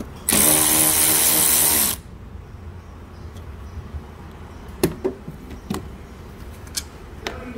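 Powered ratchet running in one burst of about a second and a half, spinning out the 10 mm bolt that holds the coolant reservoir. A few light clicks and knocks of tool handling follow.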